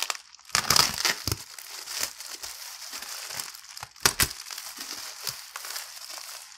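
A blade cutting open a cardboard shipping box, with steady scraping and crinkling of the packaging and a few sharp knocks, the loudest about four seconds in.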